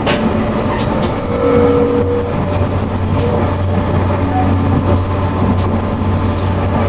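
A train running, a steady rumbling noise with a low hum that sets in after a second or so and scattered light clicks.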